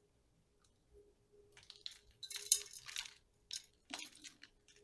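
A run of small metallic clinks and scrapes, with a clink about four seconds in: bonsai wire and tools being handled as wiring begins.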